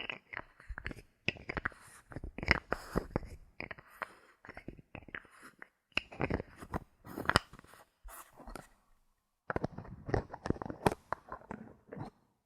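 Bottle caps handled close to the microphone: a dense run of irregular clicks, taps and crackles, pausing for about a second and a half after eight seconds, then going on.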